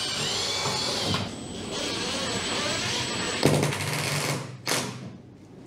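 Cordless drill running steadily with a high whine as it drills a pilot hole in the fiberglass flange for a stainless screw, then a louder, rougher burst about three and a half seconds in, followed by a short sharp knock.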